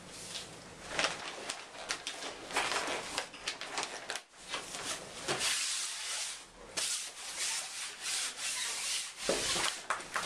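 A cloth scrubbed hard back and forth across a carpet-tiled floor, in a run of uneven rubbing strokes.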